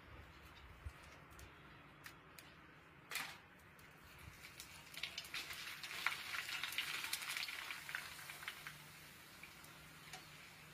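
Papad frying in a kadai of hot oil. The sizzle and crackle swell about five seconds in, peak briefly, then die away, with a single sharp knock a couple of seconds before.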